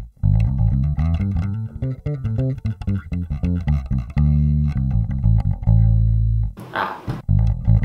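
Warwick Rockbass Corvette Basic short-scale four-string electric bass played fingerstyle through an amp, a run of plucked notes with the bass EQ boosted slightly. The playing breaks off briefly near the end, then picks up again.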